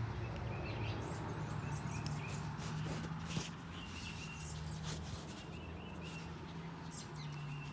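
Small birds chirping in short, repeated calls over a steady low hum, with a light tap about three and a half seconds in.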